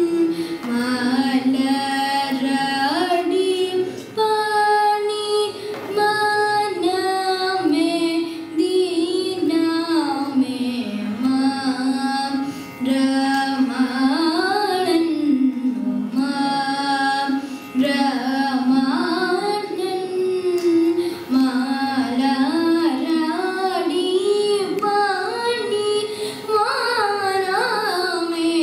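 A boy singing a Carnatic song solo, his voice gliding and wavering through ornamented phrases, with only short breaks for breath.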